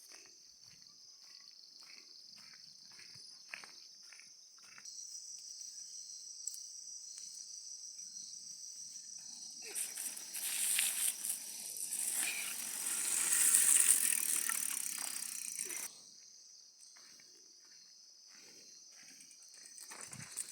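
Insects chirring in a steady high-pitched chorus, with faint light ticks early on. Midway a louder rushing noise comes in, lasts about six seconds, and cuts off suddenly.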